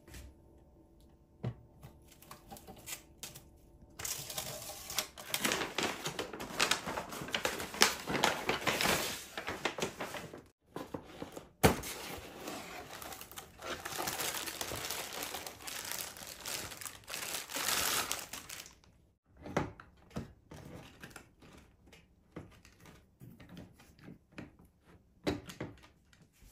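Crinkly packaging being handled, a dense crackling and rustling with many sharp ticks from about four seconds in until about nineteen seconds in, then a few scattered knocks and clicks.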